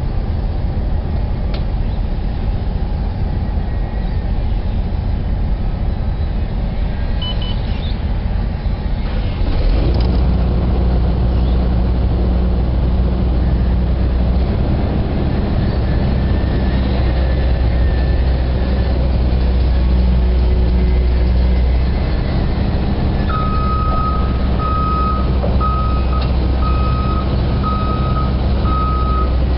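CAT 320 excavator's diesel engine running at idle, then throttled up about ten seconds in to a louder, steady run. Near the end its travel alarm starts beeping about once a second as the machine begins to track.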